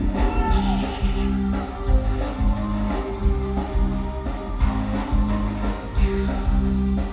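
Music with guitar over a steady, repeating bass line.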